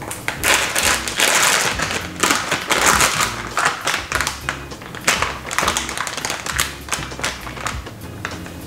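Clear plastic wrapping crinkling and rustling in irregular bursts as slices of cheese are pulled out of their package, over light background music.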